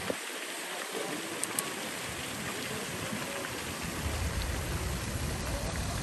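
Water of the Bethesda Fountain falling from its basins into the pool, a steady splashing rush like rain. A low rumble joins about four seconds in.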